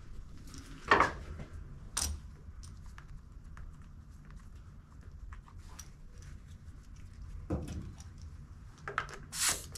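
Small metal clicks and knocks of a tire-inflator hose, gauge and valve cap being handled at a mower's front caster wheel, with a short hiss of air near the end as the chuck meets the valve stem.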